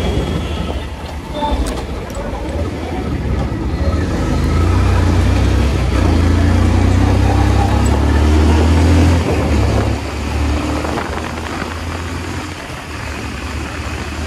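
Motorbike ride heard from the rider's own microphone: engine and road noise under a heavy, uneven low rumble of wind. It swells for several seconds in the middle, then eases off.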